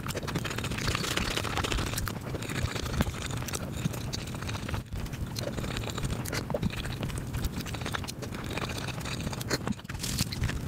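Close-miked eating sounds played back at five times speed: a fast, dense run of chewing, lip smacks and mouth clicks.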